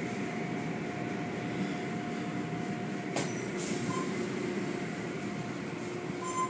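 Automatic tunnel car wash running: water spraying and soft-cloth brushes scrubbing over a car, a steady wash of noise with a faint machine hum under it. A single click about three seconds in.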